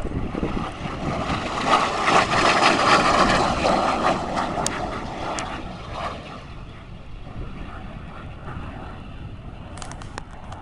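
L-39 Albatros jet trainer's single turbofan flying past. The jet noise swells to a peak about two to four seconds in, then fades away as the aircraft moves off.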